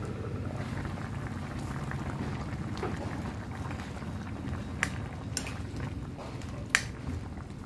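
Chicken curry bubbling steadily in a pot as it cooks, with a few sharp clicks in the second half.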